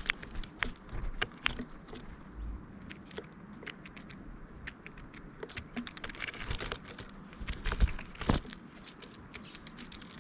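Birds pecking and scrabbling on a feeder close to the microphone: irregular clicks and taps, with a couple of louder knocks about eight seconds in.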